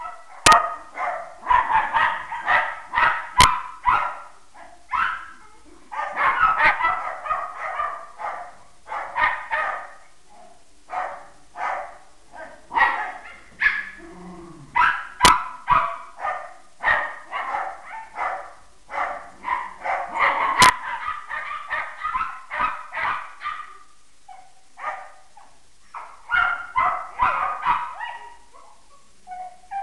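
Small dogs, a pug among them, barking and yipping in quick clusters as they wrestle in play, with short pauses between bursts and a brief low growl about halfway through.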